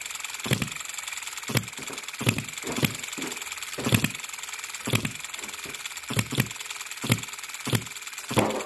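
OKMO B01 3.4 cc four-stroke petrol hit-and-miss model engine running, with a sharp bang about every half second to one second at uneven spacing as it fires and misses. Under the bangs runs a steady clatter from the hit-and-miss governor mechanism, which is typically noisy on a new engine's first run.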